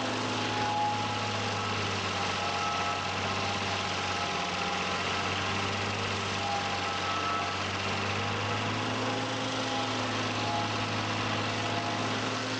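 Tractor engine running at a steady speed with an even hum, driving a tractor-mounted stump grinder.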